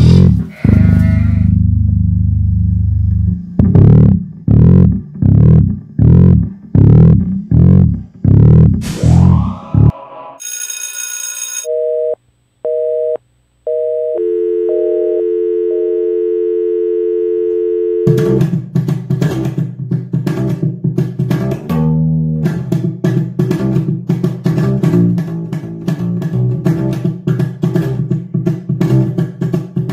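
Electric bass guitar playing a repeated plucked figure, about two low notes a second. Partway through it stops for a short burst of noise, interrupted two-tone beeps and a steady dial-tone-like electronic tone. Then fast, busy bass guitar playing resumes for the rest.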